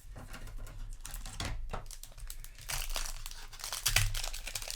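Crinkling and rustling of a Magic: The Gathering play booster's foil wrapper being handled, with irregular crackles that get busier about halfway through.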